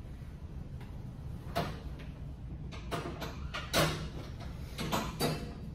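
Sharp knocks and clunks from a Roman chair knee-raise station as knee tucks are done on it: about five irregular knocks, the loudest near the middle, over a steady low hum.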